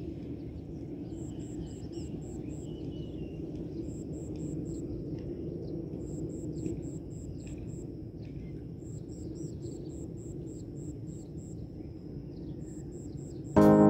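Outdoor countryside ambience: birds chirping and insects calling, with a high chirp repeated about seven times a second in runs of about a second, over a low steady background rumble. Piano music comes in right at the end.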